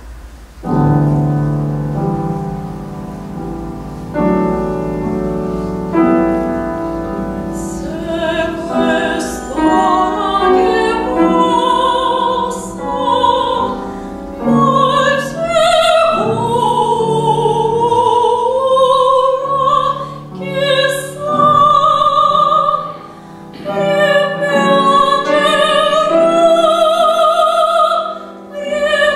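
Grand piano opening an art song alone with sustained chords about a second in, then a soprano entering after several seconds and singing in full classical voice with wide vibrato over the piano, phrase after phrase with short breaths between.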